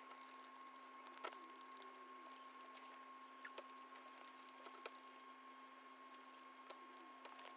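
Faint, quick plastic clicks of a 4x4 Rubik's cube being turned, played back sped up, over a steady faint hum.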